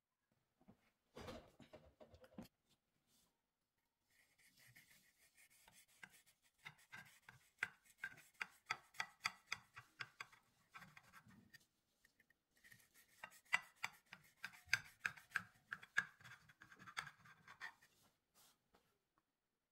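Kitchen knife sawing through a baked loaf cake and its browned crust on a plate: a run of quick, crunchy scraping strokes lasting about seven seconds, a short pause, then a second cut of about five seconds. A brief handling knock comes about a second in.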